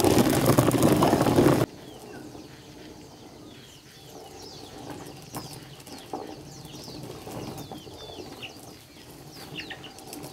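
A loud rushing noise cuts off abruptly a little under two seconds in. Then chickens chirp: many short, falling high peeps, scattered and overlapping.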